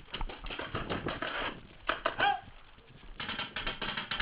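Paintball markers firing: scattered pops, then a rapid, evenly spaced string of shots starting about three seconds in.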